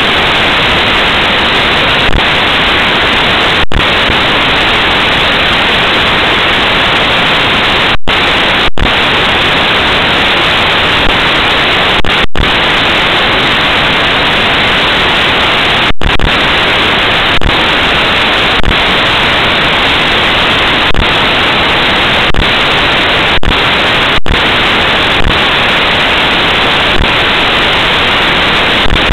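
Loud, steady static hiss covers the whole soundtrack, broken by brief dropouts every second or few. No voices or room sounds come through it.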